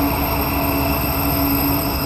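Freightliner Class 70 diesel locomotive, with a GE PowerHaul V16 engine, running past at close range while hauling container wagons. A steady engine drone with several held tones sits over the low rumble of the train.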